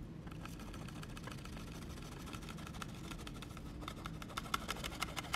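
Faint ticking and crackling of baking soda being tapped from a plastic weigh boat into a glass test tube, growing denser after about three seconds, over a steady low background hum.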